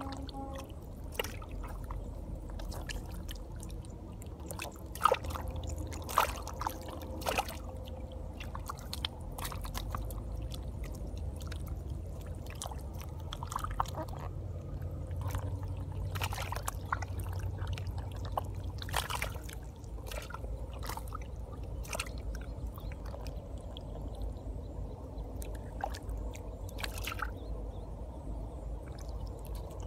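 Eels and catfish writhing in shallow mud and water, making irregular wet squelches, slaps and small splashes over a low steady rumble.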